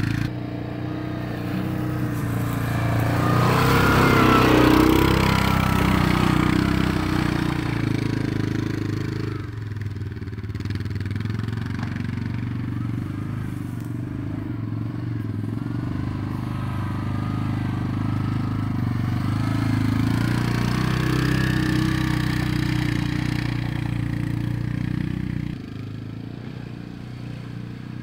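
Single-cylinder utility ATV engine running steadily as the quad is ridden through brush. It grows louder a few seconds in and again past the middle, then drops off suddenly about two seconds before the end.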